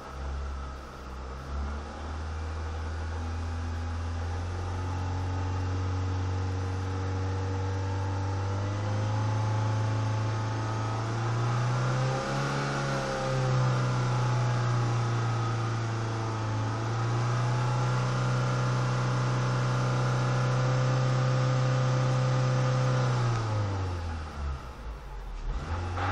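Renault Mégane II engine idling, then raised to a higher steady speed about nine seconds in and held before dropping back to idle near the end. It has a knock that the owner cannot place: piston pins, main or connecting-rod bearings, or camshafts.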